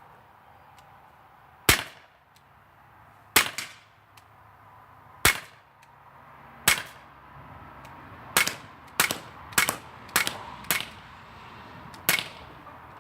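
Sig Sauer P226 air pistol firing pellets: ten sharp cracks, the first four spaced out, then five in quick succession about half a second apart, then one more near the end.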